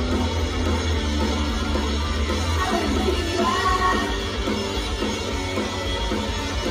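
Live rock-style idol pop song over a club PA: loud rock music with a heavy bass line, and female voices singing into microphones.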